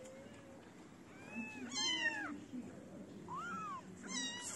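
Young kittens meowing: about four thin, high-pitched meows, each rising and then falling in pitch.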